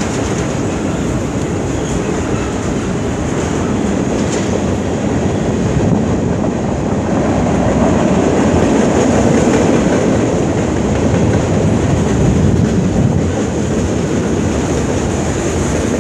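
Freight cars rolling past on the rails: a steady rumble and clatter of steel wheels on track, swelling a little in the middle.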